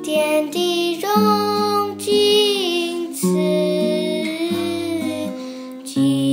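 Two women singing a slow devotional song with vibrato, accompanied by an acoustic guitar. About six seconds in the music cuts abruptly to a different passage.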